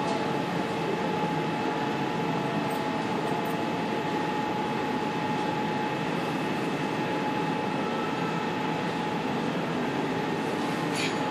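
Steady drone of running machinery with a constant mid-pitched tone held through it and a faint click near the end.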